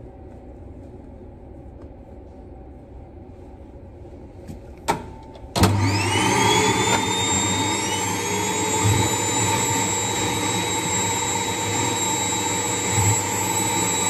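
Low steady hum and a click about five seconds in. Then a ceiling-mounted central vacuum for cleaning work clothes switches on: its motor whines up to speed within about a second and then runs steadily and loudly.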